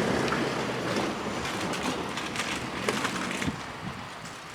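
Kintetsu limited express electric train running by, its wheels clacking over rail joints as the sound fades away.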